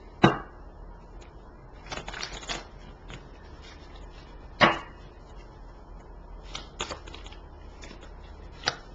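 A tarot deck being shuffled by hand: scattered sharp card snaps and taps, the loudest just after the start and about halfway through, with a short flurry of card sounds about two seconds in.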